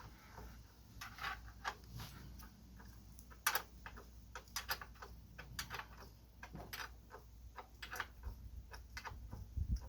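Ratcheting wrench clicking in short, irregular runs as a bell housing bolt is turned.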